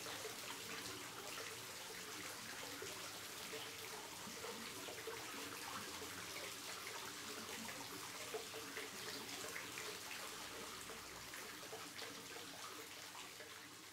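Hot-spring bath water trickling steadily into the pool, with small drips and splashes scattered through it.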